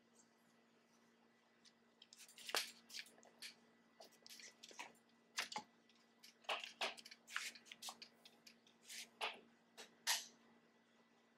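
Scattered rattles, clicks and knocks of metal and plastic as a heavy bicycle is lifted and set onto a hitch-mounted platform bike rack, starting about two seconds in, the loudest knock near the end.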